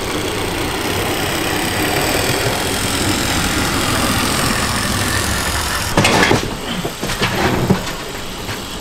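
OO gauge model Class 29 Bo-Bo diesel locomotive running noisily along the track, its small electric motor and gearing making a steady mechanical drone as it pulls its coaches. A few sharp clicks and knocks come about six to seven and a half seconds in.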